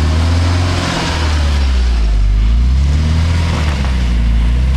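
UAZ Patriot SUV's engine pulling under load up a slippery wet clay rise, its note sagging about a second in and again near the end before climbing back, with the tyres churning through the mud.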